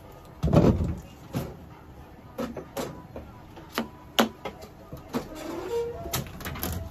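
Handling noises on a stainless steel exam table while a cat is brushed: a heavy thump about half a second in, then scattered knocks and clicks. A sharp click just after four seconds comes as the plastic brush is set down on the metal table.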